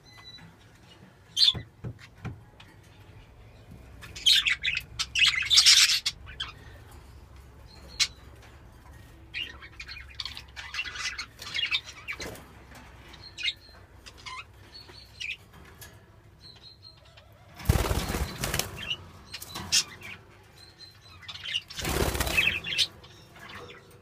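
Caged budgerigars fluttering their wings in several short bursts, one about five seconds in and two more in the last third, with brief high chirps between them.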